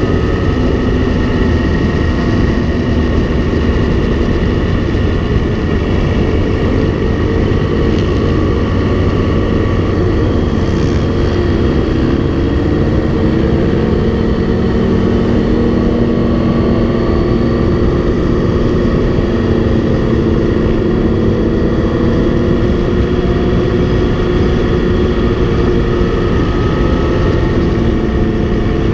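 A group of motorcycles running steadily at highway speed, their engine notes drifting slowly up and down, under heavy wind rush.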